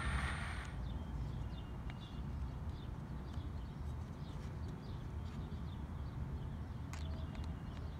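A cordless drill boring into a small plywood block, stopping within the first second. After it, a low steady rumble with faint small ticks and chirps while screws are turned into the wood with a hand screwdriver.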